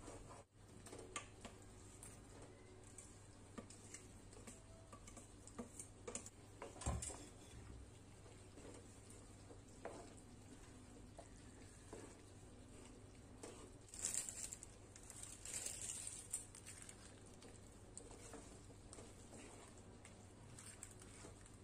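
Faint stirring of macaroni in thick cheese sauce with a wooden spatula in a metal pan: soft scrapes and squelches, with one louder knock about seven seconds in and a short spell of louder scraping about two-thirds of the way through.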